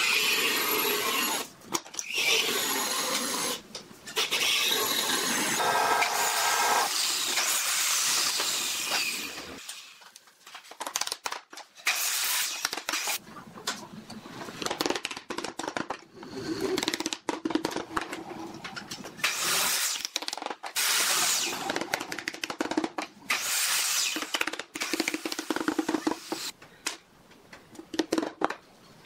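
Woodworking sounds at the bench: a power tool runs for about the first ten seconds, then comes a scatter of knocks and short handling noises as pine strips are fitted into place, with rubber-mallet taps near the end.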